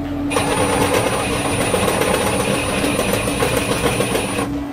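Drill press bit cutting into a square steel tube: a harsh grinding with a thin high whine above it, starting a moment in and stopping shortly before the end.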